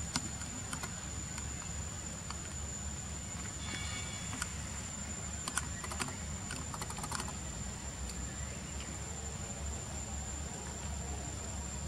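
A steady high-pitched insect drone over a low rumble, broken by scattered sharp clicks, most of them from about four to seven seconds in.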